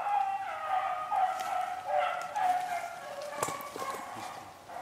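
A pack of beagles baying while running a rabbit: several drawn-out notes overlap one after another. There is a sharp click about three and a half seconds in.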